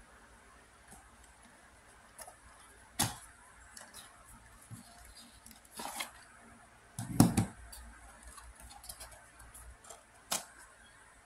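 Paperboard puzzle box being opened and handled: scattered rustles, scrapes and clicks of cardboard, with a heavier knock about seven seconds in.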